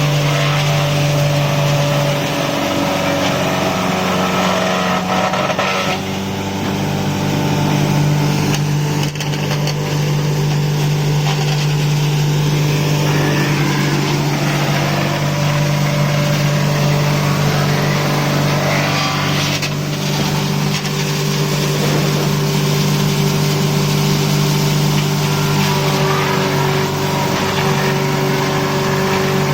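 Wood crusher machine running: a loud, steady machine hum with a rushing, grinding noise over it. Its pitch shifts slightly about two seconds in and again about six seconds in.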